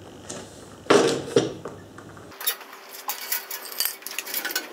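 Tools and metal being handled on a workbench: a knock and rustle about a second in, then a run of light metallic clinks and rattles.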